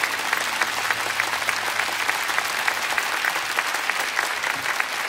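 Live concert audience applauding steadily at the end of a song, many hands clapping at once.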